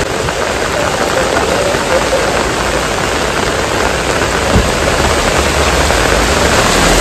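Heavy rain pouring onto a flooded paved road: a loud, steady hiss of drops splashing on standing water. A brief thump comes a little past the middle, and a low rumble joins in near the end.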